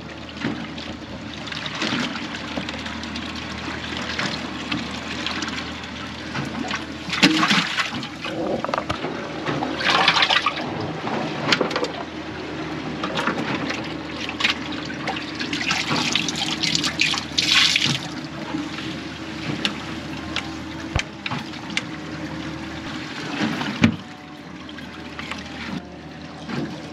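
Water running and splashing, with several louder gushes, over a steady low hum.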